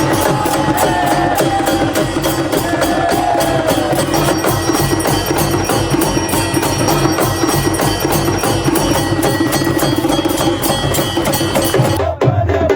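Temple aarti: a fast, steady beat of drums and clanging bells, about seven or eight strikes a second, with ringing bell tones held over it. The sound changes abruptly near the end.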